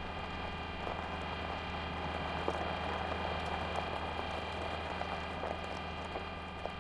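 Rover wheels rolling and crunching over gravel, a grainy crackle with scattered small clicks, over a steady hum.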